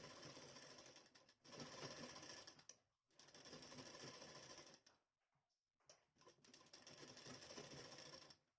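Sewing machine stitching cloth, heard faintly in four short runs with brief stops between them.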